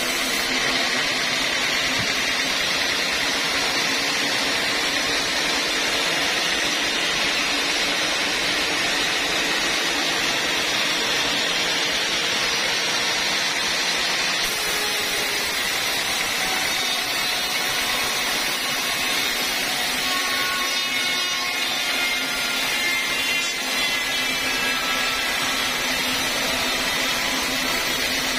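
Horizontal band sawmill cutting lengthwise through an old teak log: the blade runs through the wood with a loud, steady high hiss that does not let up.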